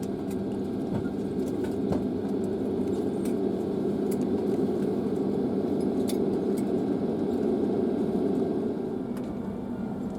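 Steady jet airliner cabin noise with a low hum, the engines running at low power as the aircraft taxis after landing; a few faint ticks of cabin rattle.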